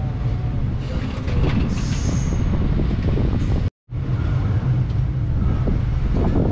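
Rumble of a moving express passenger train heard from on board, wheels running on the track, with a brief high squeal about two seconds in. The sound cuts out for a split second a little before four seconds in, then the same running noise resumes.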